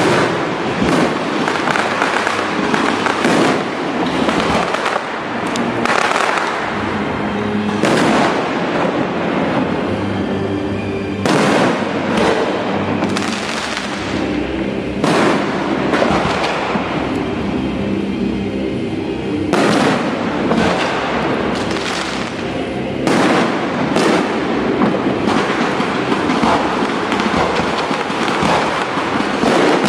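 Aerial fireworks going off in quick succession: dense crackling with frequent sharp bangs, thinning out briefly a couple of times in the middle.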